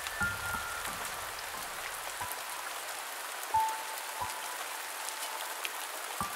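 Steady rain hiss, with a few sparse high tones each held for about a second and several soft low thuds.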